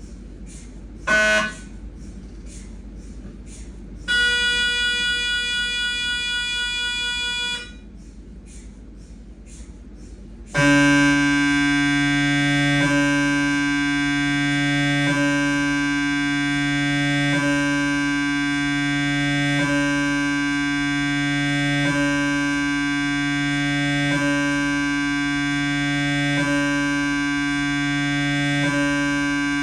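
Siemens MAGNETOM Lumina 3 T MRI scanner's gradient coils as the T1-weighted 3D VIBE gradient-echo sequence starts. It begins with faint regular ticking and a brief loud chirp about a second in. A steady buzzing tone follows for about three and a half seconds, and about ten seconds in a loud continuous droning tone sets in, swelling slightly about every two seconds.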